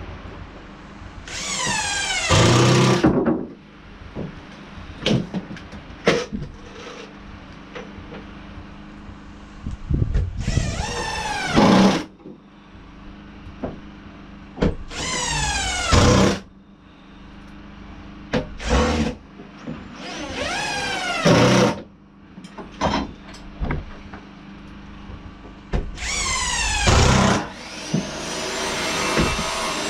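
Power drill driving screws into spruce floorboards, about six short runs in which the motor's pitch falls as each screw bites and drives home, with clicks and knocks of handling the boards and screws between runs.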